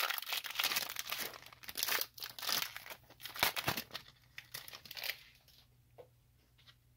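Pokémon TCG booster pack wrapper crinkling and tearing as it is ripped open and the cards are pulled out. The crackling dies away about five and a half seconds in.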